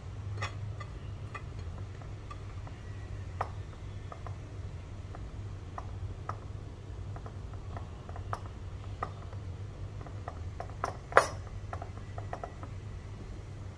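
Fingers pressing cooked rice into a glass jar: scattered light clicks and taps against the glass, with one sharp clink about eleven seconds in, over a steady low hum.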